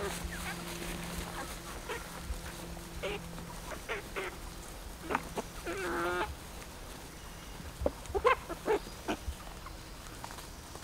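A flock of young Red Ranger broiler chickens calling with scattered short squawks and cheeps while they feed. The loudest and longest calls come in the middle and about eight seconds in.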